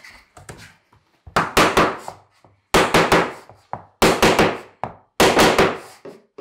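Hammer striking a wooden tapping block held against the edge of a stone-composite vinyl floor plank, knocking the plank into place. The blows come in quick bursts of three or four, about one burst a second.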